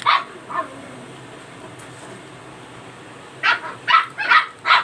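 A dog barking in short, sharp yaps: two at the start, then a quick run of four yaps from about three and a half seconds in.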